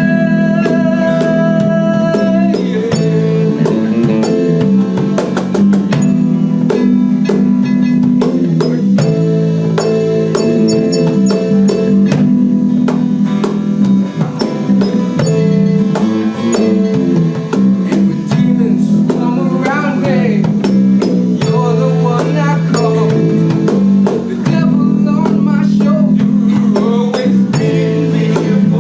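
Live rock band playing a song: electric guitar, bass and a drum kit keeping a steady beat, with singing in places.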